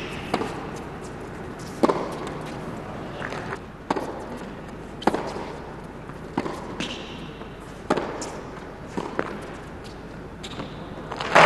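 A tennis rally: the ball is struck by rackets and bounces on the hard court, giving sharp pops roughly every second and a half. Applause breaks out at the very end.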